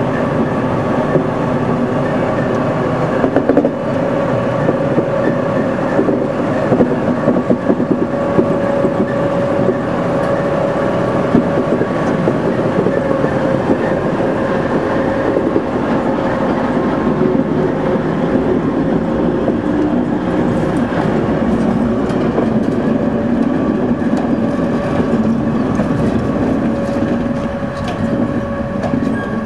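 2TE116 diesel locomotive section rolling slowly past and away, its 16-cylinder turbocharged diesel engine running with a steady whine over a low rumble. In the second half there are sharp clicks, likely the wheels on the rail joints.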